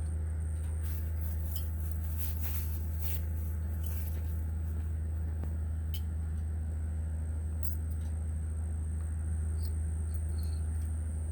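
Steady low engine hum, like an idling vehicle, with a few light clicks and a faint steady high-pitched tone.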